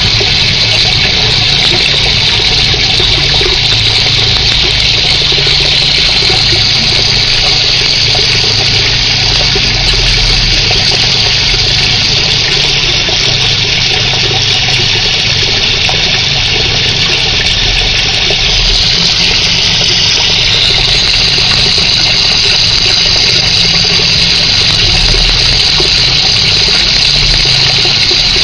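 Steady rushing, bubbling water noise with a low motor hum underneath, from the water and pump of a fish container, running on without a break and turning slightly brighter about two-thirds of the way through.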